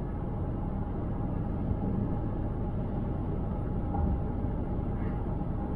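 Car being driven, a steady rumble of tyre and road noise.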